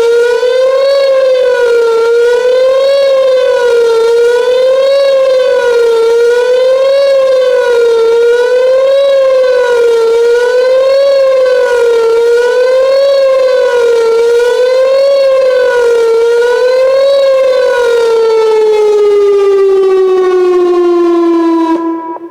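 Whelen WPS-2910 electronic outdoor warning siren sounding the wavering attack signal: one tone rising and falling about every two seconds. Near the end it stops wavering, winds down in pitch and cuts off.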